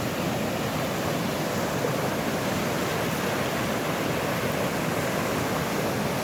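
Steady, loud rushing of a creek's waterfall running high with storm rain and meltwater.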